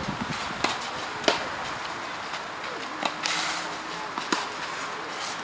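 Tennis balls struck by rackets during a doubles rally: a few sharp pops at irregular intervals, the loudest a little over a second in.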